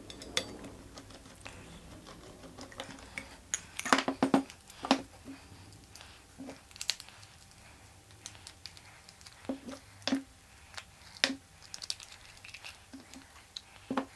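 Clicks, taps and light clatter of a screwdriver, screw and pistol grip being handled against an aluminium rifle chassis as the grip is unscrewed and taken off. There is a quick run of knocks about four seconds in, then single taps every second or so.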